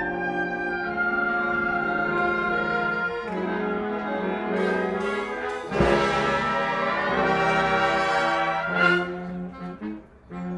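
Wind orchestra playing an arrangement of sixties soul songs, brass carrying sustained chords. There is a loud crash about six seconds in.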